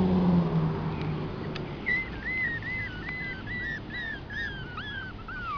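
A passing car's engine hum fading away in the first second or so. Then a run of about a dozen short, high whistled notes, about three a second, each dropping at its end and the series stepping lower in pitch.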